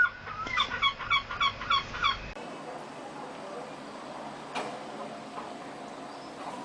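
A bird giving a rapid run of about eight short pitched calls, roughly five a second, lasting under two seconds, followed by a much quieter stretch with a few faint ticks.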